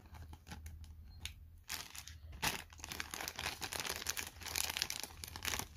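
Clear plastic toy bag crinkling and rustling irregularly in the hands as it is pulled and torn open.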